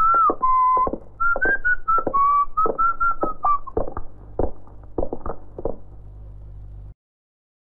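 A man whistling a tune while footsteps walk on a hard floor. The whistling stops about three and a half seconds in, the footsteps go on a little longer, and near the end the sound cuts out to silence.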